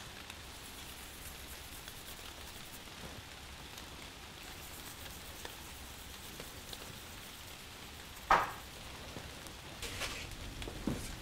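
Steady light rain, a soft even hiss. About eight seconds in there is one sharp knock, and a few faint clicks follow near the end.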